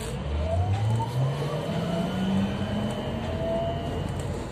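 Bogdan T901 trolleybus's electric traction drive whining as the trolleybus pulls away and speeds up, several tones rising together in pitch over about three seconds.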